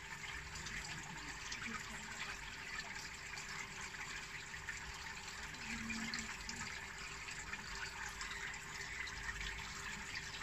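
Steady trickle of water running through a hydroponic tower, with a faint steady hum underneath.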